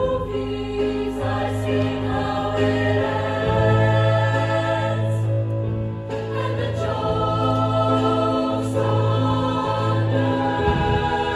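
High school show choir of mixed voices singing long held chords in harmony, over sustained low bass notes from the accompanying instrumental combo.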